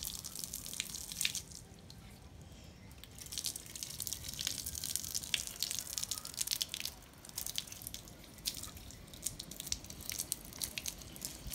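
Rain dripping and splashing onto wet concrete: an irregular patter of drops, thinning briefly about two seconds in.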